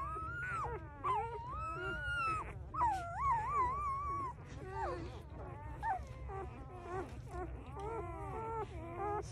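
Newborn puppies whining and squeaking, several thin high cries overlapping, each rising and falling in pitch.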